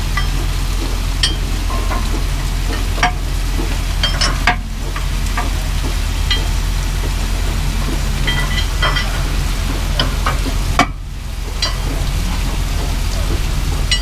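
A steady low machine drone with a hiss over it, and scattered light metallic clinks from a steel wrench on the flange bolts of a pipe coupling.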